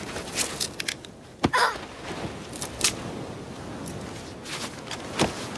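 A few sharp knocks and thuds, the loudest about a second and a half in and another near the end, over a steady hiss of wind and surf.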